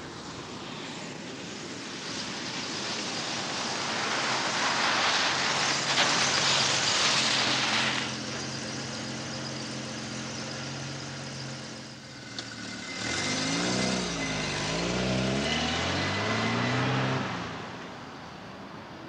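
1980 Holden Commodore with its 2.85-litre six-cylinder engine driving on a dirt road: a rushing noise of tyres on gravel builds to a peak about six seconds in, then the engine runs steadily. From about thirteen seconds in, the engine's revs rise and fall several times.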